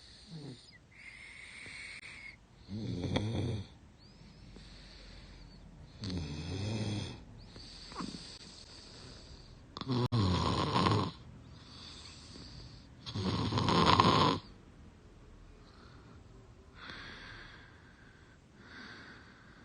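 A sleeping woman snoring through her open mouth: four loud snores, one every three to four seconds, with softer breaths between them, then only quiet breathing for the last few seconds.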